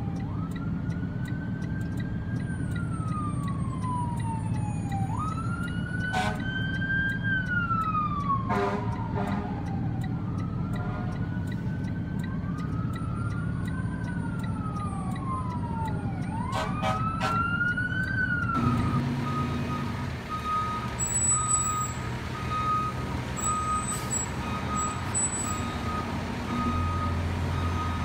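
Fire truck siren wailing in long rising and falling sweeps, with a few short horn blasts, over engine and traffic rumble. About two-thirds of the way through the sound changes abruptly to a fire truck's reversing alarm beeping steadily as the tower ladder truck backs up.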